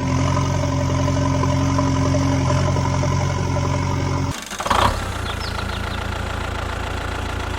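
A vehicle engine running steadily at idle. A little past halfway it cuts off abruptly, and after a brief noise another steady engine hum takes over.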